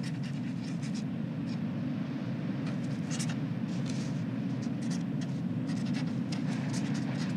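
Pen scratching on paper in quick short strokes as letters are signed, over a steady low rumble.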